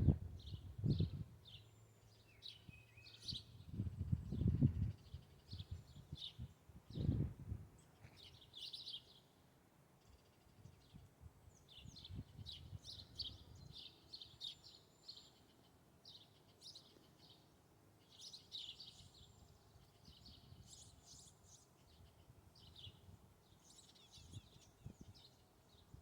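Small songbirds chirping, many short high chirps repeated throughout. A few low rumbles come in the first eight seconds.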